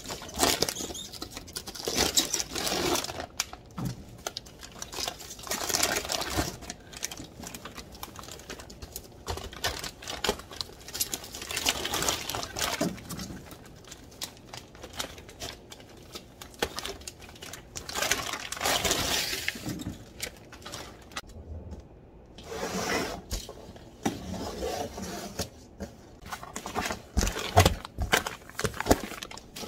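Plastic multipack wrap crinkling and rustling in irregular bursts as bottled water is pulled out and handled. Near the end, a few soft knocks as packages are set down.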